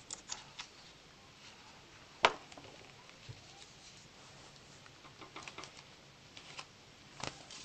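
A page of a hardcover picture book being turned by hand: faint paper rustles and handling clicks, with one sharp tap about two seconds in.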